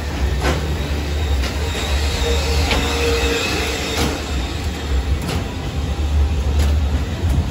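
Fairground background noise: a steady low rumble with scattered clicks and knocks throughout.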